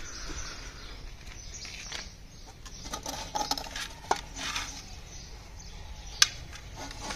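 Scattered light metallic clinks and knocks of old metal junk being handled and shifted, with one sharp click about six seconds in.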